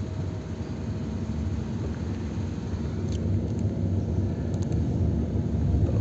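Steady low rumble of a moving vehicle, engine and road noise while driving, growing slightly louder towards the end.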